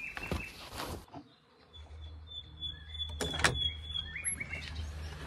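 Small birds chirping and calling in short high notes, over a low wind or handling rumble on a handheld microphone, with a sharp knock about three and a half seconds in.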